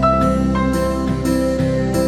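Background instrumental music with guitar, the notes changing every half second or so.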